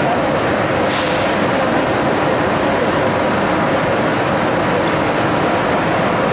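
Steady hum and rumble of a RENFE train standing at the platform, with a short sharp hiss of air about a second in.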